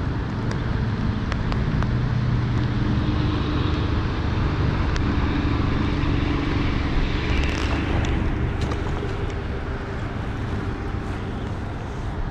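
Steady rush of river water and rain, with a low engine hum from a vehicle in the distance through the middle few seconds.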